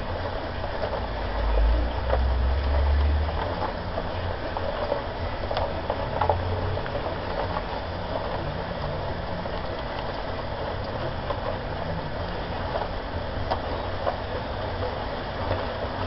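Homemade concrete mixer running steadily, its drum turning with the mix churning and clattering inside, with a heavier low rumble about two seconds in.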